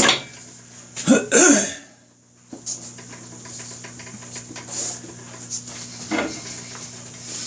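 A man's short cough or grunt of effort about a second in, then faint metallic clinks and taps while a motorcycle tire bead is worked onto the rim, over a steady electrical hum.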